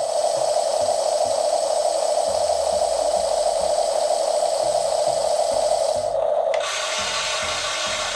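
Small electric motors and plastic gearboxes of a toy radio-controlled construction vehicle running with a steady whine. About six and a half seconds in the sound changes to a thinner, hissier whir for the last second and a half.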